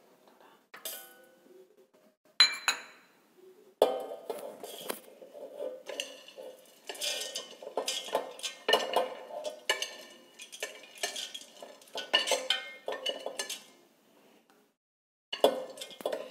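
Seeds, oats and nuts being swept off a plate with a metal utensil into a stainless-steel mixer jar. It is a run of clinks and rattles as they hit the steel, with a short pause near the end.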